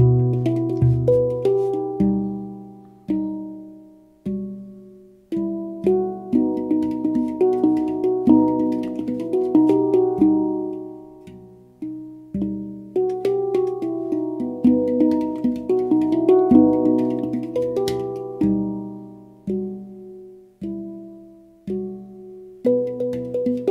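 Pantheon Steel Halo handpan (2015, Onoleo scale) played solo: melodic phrases of struck notes, each ringing and fading away, with a few brief lulls where the notes die down.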